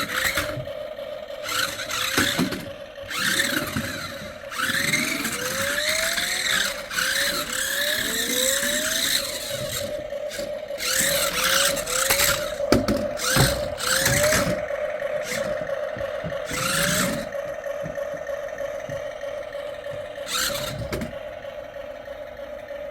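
Toy RC stunt car's small electric drive motors whining and revving up again and again, with the wheels scrubbing and skidding and a few sharp knocks.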